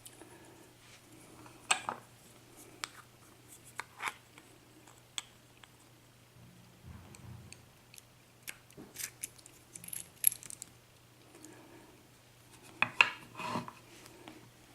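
Small metal clicks and clinks of tools and lock parts being handled as a Baldwin pin-tumbler lock is taken apart, coming irregularly, with a sharper click about two seconds in and a cluster of clicks near the end.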